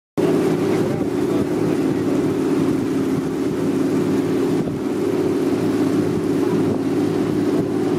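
Tour boat's engine running steadily, a constant low hum, with wind buffeting the microphone. The sound cuts in abruptly just after the start.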